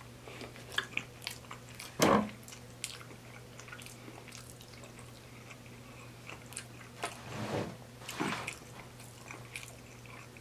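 Close-miked chewing of cheesy spaghetti and garlic bread: small wet clicks and smacks of the mouth. There is a louder mouth sound about two seconds in and two more around seven and eight seconds. A steady low hum sits underneath.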